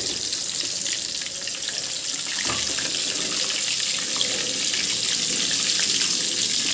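Prawn-masala-coated egg balls deep-frying in hot oil, a steady sizzle with fine crackling.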